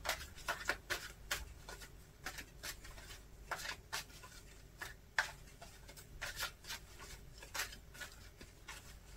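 A deck of tarot cards being shuffled by hand: a quiet run of soft, irregular card flicks and taps.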